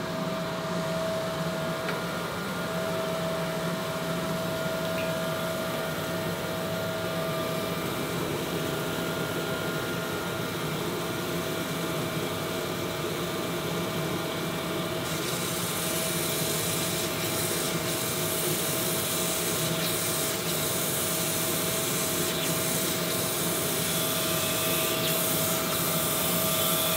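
Crankshaft grinding machine running, its wheel grinding a main bearing journal of a crankshaft under a flood of coolant. A steady whine sits under the grinding noise, and a brighter hiss joins about halfway through. This journal is being ground to remove its runout.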